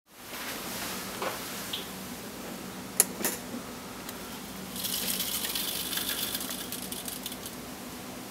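A sharp click of the signal panel's pushbutton about three seconds in. About two seconds later a hobby servo whirs for nearly three seconds as it lowers the blade of an HO-scale train order semaphore. A steady low hum runs underneath.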